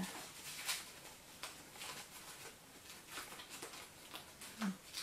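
Paper rustling and crinkling in irregular soft crackles as hands handle and unwrap a white paper strip.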